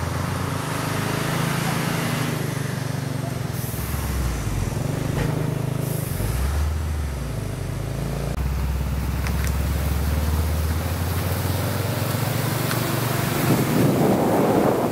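Hino truck's diesel engine running as the loaded truck pulls away, its low note stepping up and down several times as it changes speed. Wind buffets the microphone near the end.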